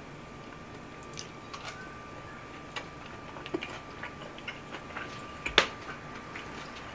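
Scattered small clicks and ticks at irregular intervals, with one sharper click about five and a half seconds in, over a faint steady hum.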